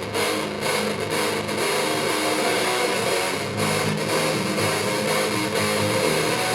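Live band music: guitar-led instrumental intro with sustained chords and bass, no vocals.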